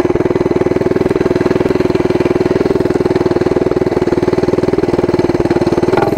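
Mini bike's small single-cylinder engine idling steadily with a fast, even pulse.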